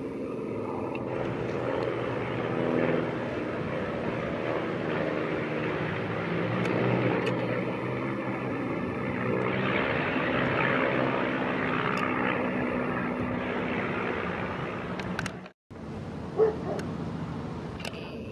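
Piston engines of a formation of vintage biplanes flying past, a steady drone of several engines whose pitch drifts as they pass. The sound cuts off abruptly about 15 seconds in, then returns quieter with a single sharp click.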